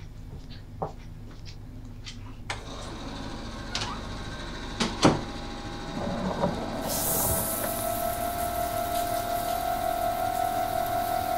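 Footsteps on a hard floor, then a bathroom door knocking shut about five seconds in. From about seven seconds water starts running with a steady hiss, joined by a low sustained drone from the score.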